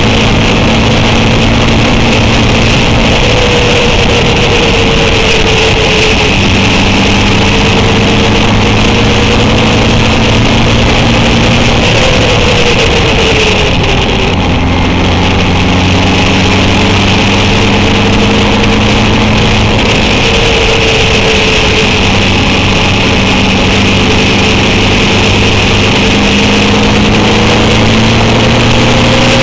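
Honda CB750's inline-four engine running under way, with strong wind rush over the microphone. The engine pitch dips and climbs again a few times, around six and fourteen seconds in.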